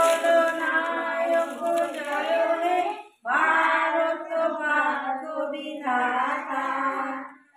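A woman and a group of children singing a prayer song together, unaccompanied. There is a short pause between phrases about three seconds in.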